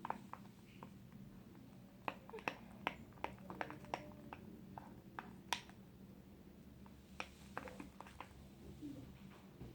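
Glue, shaving cream and Tide detergent mixture being stirred as it thickens into fluffy slime: quiet, irregular sticky clicks and squelches, a few a second, over a faint low hum.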